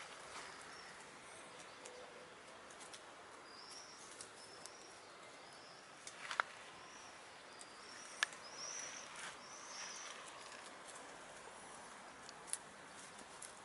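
Hens foraging in grass: faint rustling with a few sharp clicks, one about six seconds in, one past eight seconds and one near the end. Over it, a bird gives a run of short, high chirps through the middle.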